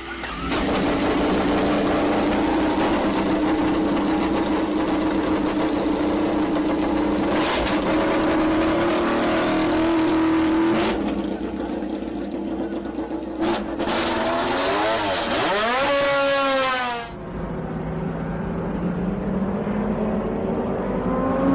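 Racing motorcycle engine running hard at steady high revs, then climbing sharply in pitch as it accelerates. The sound cuts off abruptly about seventeen seconds in, and a slightly quieter engine note follows whose pitch slowly rises.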